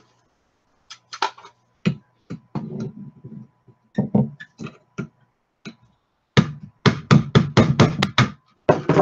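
Small hammer tapping a punch to drive the trigger-group pins out of a WK180c rifle's lower receiver: scattered clicks and knocks of handling from about a second in, then a quick run of about ten sharp taps, some five a second, over the last few seconds.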